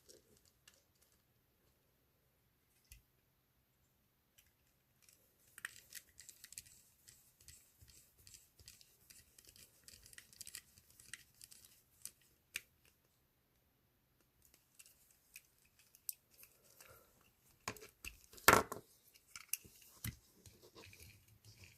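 Faint scattered clicks and scrapes of small metal and plastic parts being handled while a 1/64-scale diecast truck is put back together, with one sharp, louder click about eighteen seconds in.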